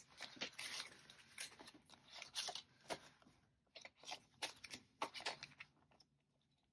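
Paper rustling and crinkling in a run of short, uneven strokes, dying away about six seconds in: cash envelopes and banknotes being handled.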